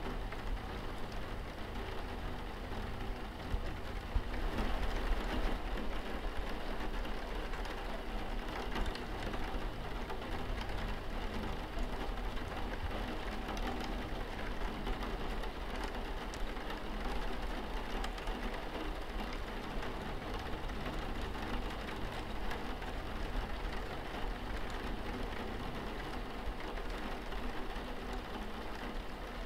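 Steady rain falling on window glass, an even patter, with a low steady drone underneath.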